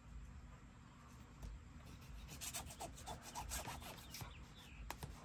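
Faint rubbing and rustling of paper being handled and pressed down by hand, with a cluster of light clicks and taps in the second half and one sharper click near the end.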